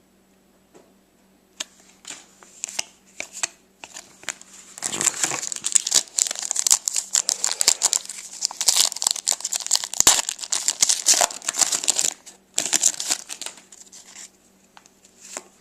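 Crinkly trading-card packaging being handled and crumpled: a few small clicks at first, then several seconds of dense crackling from about five seconds in, a shorter burst a little later, and it fades to light handling near the end.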